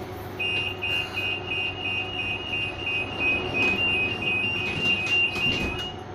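Door-closing warning beeper of a BN T2000 tram: a high double-tone beep repeating rapidly for about five and a half seconds, starting about half a second in and stopping as the doors shut.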